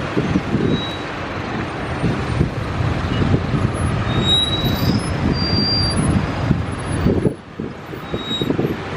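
Road traffic: the engines and tyres of cars, vans and buses in heavy traffic on a multi-lane city road make a steady rumble that dips briefly about seven seconds in.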